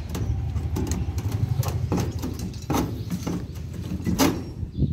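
A pointed steel rod jabbed and twisted through steel wire mesh into a bolt hole in an iron sheet, making irregular metal clicks and knocks, two of them louder, over a steady low hum.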